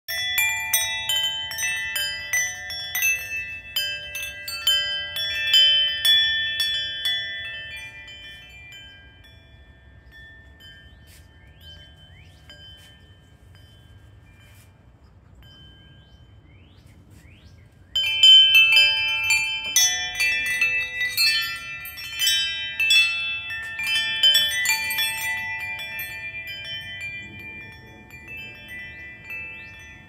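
Metal tube wind chime ringing as its tubes strike one another, many overlapping ringing notes. The strikes die away after several seconds into about ten seconds of only faint ringing, then a sudden gust sets off a fresh run of strikes that slowly thins out.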